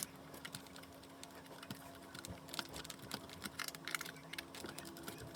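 Small screws being driven by hand into the plastic housing of a Dyson V6 vacuum to hold its new battery, with faint, irregular clicks and ticks of the screwdriver and parts over a faint steady hum.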